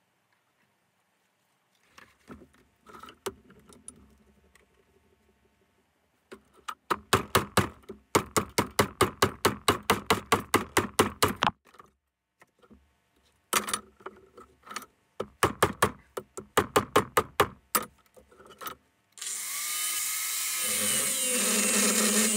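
Metal hammering on a steel block, rapid blows at about five a second in two long runs, knocking apart old welding torches for scrap. A small angle grinder then starts about three seconds before the end and runs, cutting into a torch.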